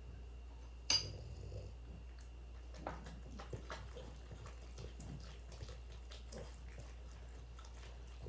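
Two French bulldogs licking peanut butter off a spoon: soft, wet lapping and smacking with many small clicks. A sharp clink of the spoon against the dish about a second in.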